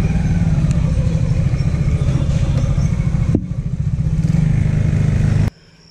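Motorcycle engine running steadily at low speed, heard from the rider's seat. The sound cuts off suddenly near the end.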